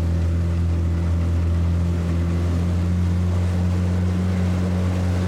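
Motorboat engine running at a steady speed, a loud even drone with a low hum and overtones above it that hold the same pitch throughout.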